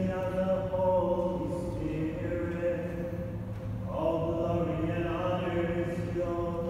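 Voices singing a slow liturgical chant in long held notes in a large church, the note changing about a second in and again about four seconds in.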